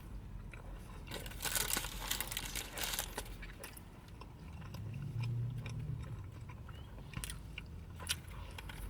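A person biting into and chewing a McDonald's cheeseburger close to the microphone, with irregular clicky chewing sounds and a brief low hum around the middle.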